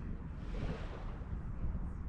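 Wind buffeting the microphone: a low, uneven rumble under a faint hiss.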